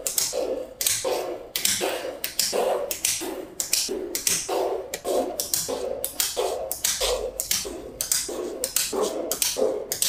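Small magnetic balls clicking and rattling in quick, uneven runs as slabs of them are snapped into place on a magnetic-ball build.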